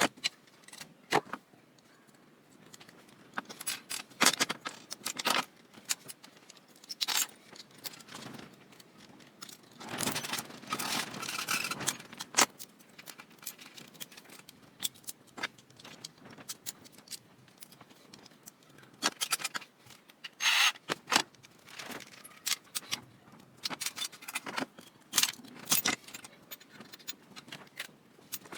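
Hand tools and small metal parts clicking and clinking irregularly as a food processor is taken apart by hand, with one continuous stretch of noise lasting about two seconds, about ten seconds in.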